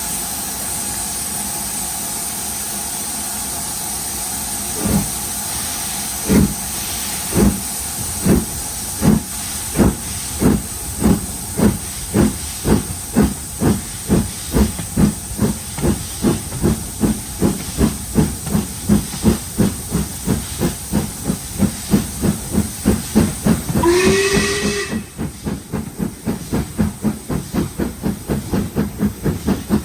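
Steam locomotive 44806, a two-cylinder LMS Black Five, starting away from a stand: steam hisses steadily, then exhaust beats begin slowly about five seconds in and quicken steadily as she gathers speed. A short whistle sounds near the end, and the high hiss stops just after it while the beats run on.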